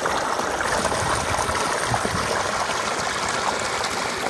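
Irrigation water pouring steadily out of an outlet and splashing onto the soil of a field channel.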